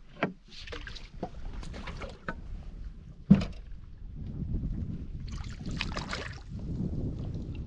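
Knocks and handling noises in a small fishing boat on the water, with one sharp knock a little over three seconds in and a brief rush of water noise about six seconds in.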